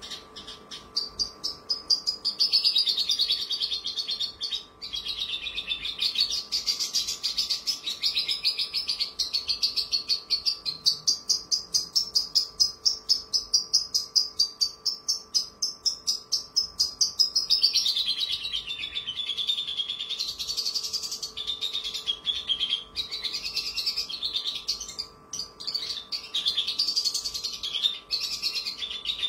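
Caged Javan bush lark (branjangan) singing a long, unbroken song of rapid, sharp repeated notes that shift from phrase to phrase, with a faint steady hum underneath.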